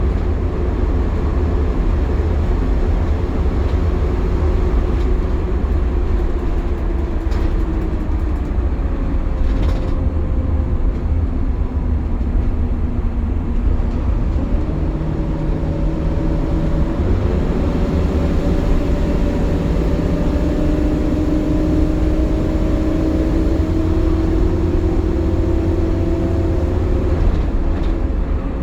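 Optare Solo midibus heard from on board while driving: a low engine rumble with a steady vacuum-cleaner-like whine on top, the 'hoovering' of its cooling fan working hard in warm weather. The whining tones shift in pitch a few times, stepping up around the middle and again later as the bus changes speed.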